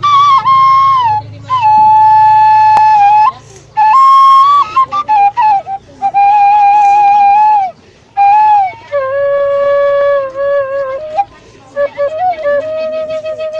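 Sundanese bamboo suling (end-blown flute) played solo: a slow melody of long held notes joined by slides and small ornaments, broken by short pauses for breath, with the pitch stepping lower through the phrase. Near the end a held note wavers in a fast vibrato.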